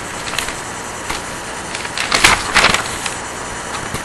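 Steady background hiss, with a few short noisy swishes, the loudest two a little over two seconds in.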